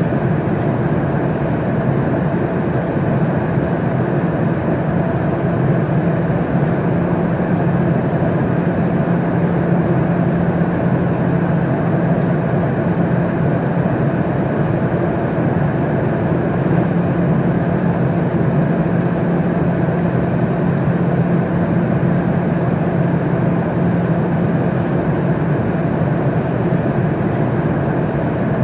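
Airliner cabin noise in flight: a steady, even rush of engine and airflow noise with a low drone underneath, unchanging throughout.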